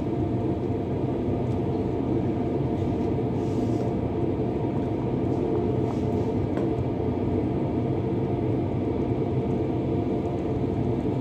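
Steady low rumble at the stove as a pot of noodle soup simmers, with a few faint knocks of a wooden spoon against the pot.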